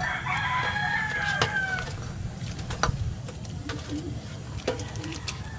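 A rooster crowing once, a call of about two seconds that sags in pitch at its end. Scattered light clicks and knocks, as a metal tray is tipped over a cooking pot, and a steady low rumble sit underneath.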